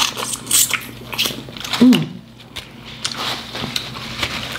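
Close-up eating sounds: crab leg shells cracking and crunching under teeth and fingers, with sucking and chewing as the meat is pulled out. A short vocal hum comes about two seconds in.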